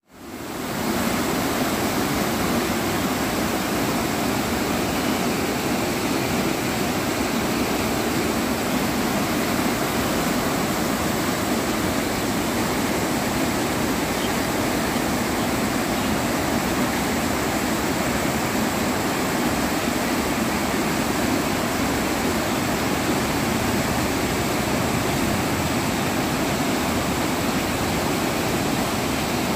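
Swollen river in flood rushing through a barrage and breaking over rocks, a steady rush of water that fades in over the first second.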